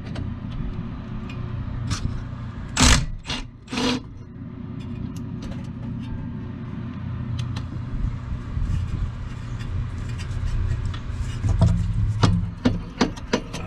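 Metal clanks and scrapes of hand tools on a car's brake and suspension parts: three loud scraping clanks about three seconds in, then a run of sharp clicks and knocks near the end. Under them is a steady rush of swamp-cooler air blowing on the microphone.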